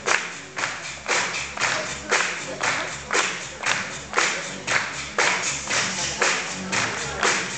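Music with a sharp, steady beat, hitting about twice a second.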